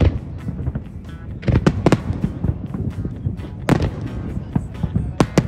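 Aerial fireworks shells bursting: a run of sharp bangs, clustered about a second and a half in, near the middle and near the end, with smaller crackles and a low rumble between them.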